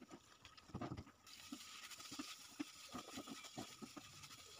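Faint, scattered soft scrapes and taps of a wooden spatula stirring a thick radish mixture in a frying pan.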